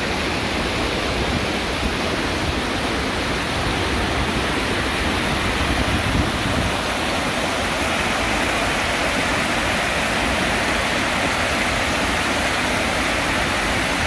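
Stream water pouring over a low concrete weir: a steady rushing noise.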